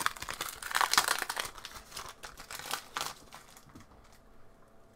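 Foil booster pack wrapper crinkling and crackling in the hands for about three seconds, then fading away.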